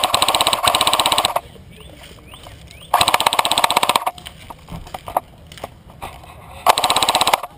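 Magpul Masada airsoft electric gun firing on full auto in three short bursts, each a rapid, even stream of shots lasting about a second or less.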